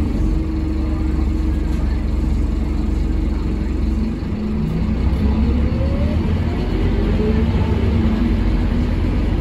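Scania DC9 five-cylinder diesel of a Scania K230UB bus, heard inside the cabin: a steady low rumble that dips briefly about four seconds in, then builds again with a rising whine as the bus pulls away and accelerates.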